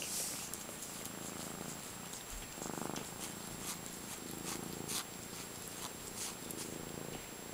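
Kitten purring in pulses about a second long while licking its paw, with small clicks of the tongue throughout.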